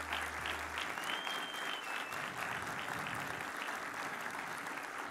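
A church congregation applauding steadily, a dense, even round of clapping, with a brief high whistle over it about a second in.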